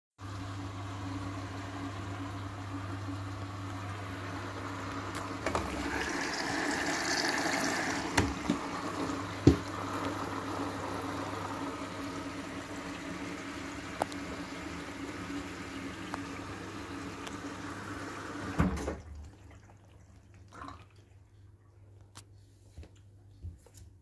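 Hoover washing machine in its final rinse: water rushing through the machine over a steady low electrical hum, with a few sharp knocks, until it all stops suddenly about 19 seconds in, leaving a few faint clicks.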